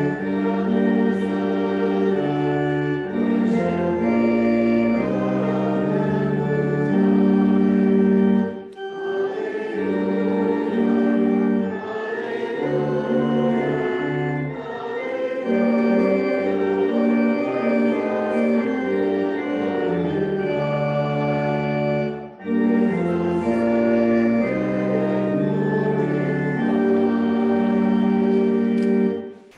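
Church organ playing a hymn in slow, held chords, with voices singing along. The music pauses briefly about 8 seconds in and again about 22 seconds in, and ends just before the end.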